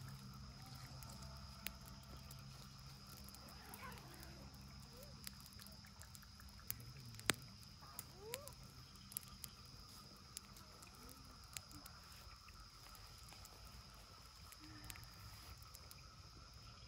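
Campfire of dry twigs and sticks crackling quietly, with scattered sharp pops, the loudest about seven seconds in.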